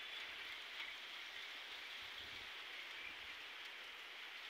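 Rain falling steadily, a faint, even hiss with a few light drop ticks.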